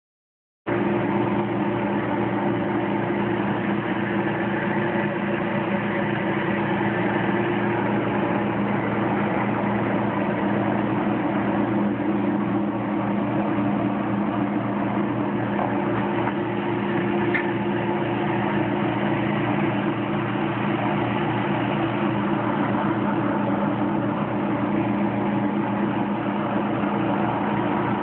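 GE non-automatic, impeller-style dishwasher running mid-wash: a steady motor hum with the impeller throwing water against the tub and glass, starting just under a second in.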